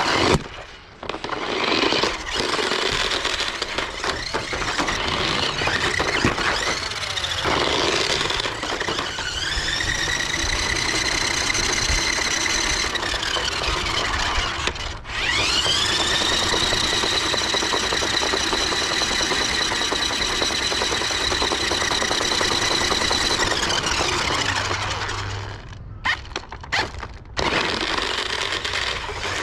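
Small electric drive motors of a New Bright Tumble Bee RC stunt car whining as it drives and spins on rough concrete. In the first part its tyres and plastic body scrape and knock. Later the whine rises in pitch, holds, then falls away, twice over.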